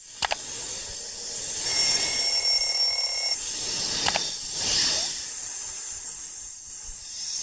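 Sound effects of a subscribe-button animation: a steady hiss of whooshing noise, with sharp mouse clicks just after the start and about four seconds in, and a high, steady ringing tone lasting under two seconds.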